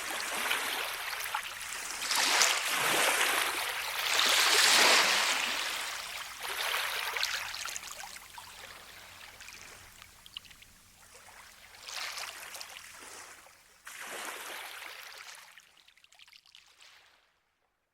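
Rushing-water noise swelling and ebbing in several surges, loudest a few seconds in, then fading away and stopping shortly before the end.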